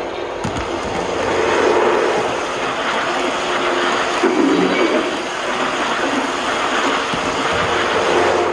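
Lionel O-gauge Acela model train running past close by on three-rail track: a steady rush of wheels and motors that swells about a second and a half in as the train nears and stays loud while the cars go by.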